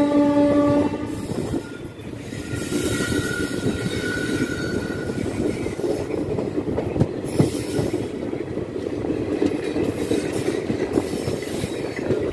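Express train departing: its horn sounds a steady tone and stops about a second in, then the train rolls on with a steady rumble and wheels clacking over the rail joints. A faint wheel squeal is heard for a couple of seconds.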